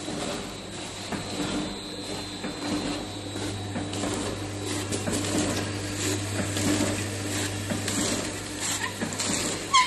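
Vertical snack packing machine running: a steady hum with rapid, busy clattering from its moving mechanism. A short, high squeak near the end.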